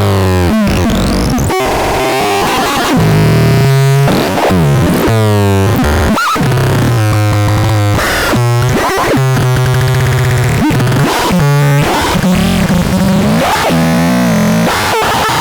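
Electronic synthesizer-type sound demo: harsh, noisy electronic tones that keep changing, mixing sweeping pitch glides with held low buzzy notes that shift every second or so.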